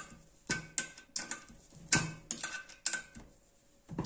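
Open-end spanner clicking against the steel nut and washer of a toilet tank-to-bowl bolt as the nut is tightened down: a run of sharp metallic clicks, irregularly spaced, about two a second.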